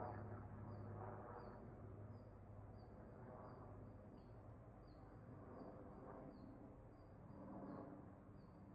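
Quiet outdoor ambience with a small bird giving short, high, falling chirps about twice a second, over a faint low steady hum.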